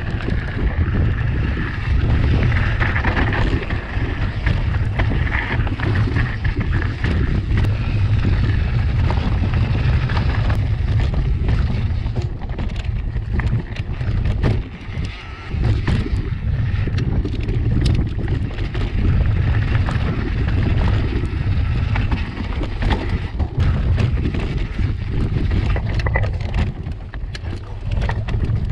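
Wind buffeting a helmet- or bike-mounted action camera's microphone during a mountain-bike descent on a dirt trail, with frequent clicks and rattles from the bike and tyres over rough ground. The level drops briefly about halfway through.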